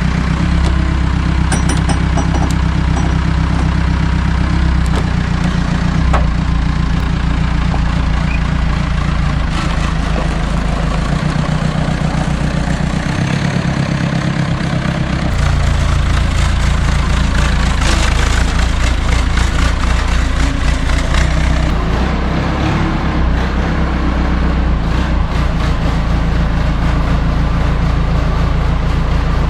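Telehandler's diesel engine running under load. Its note sinks about eleven seconds in and picks up again strongly about four seconds later.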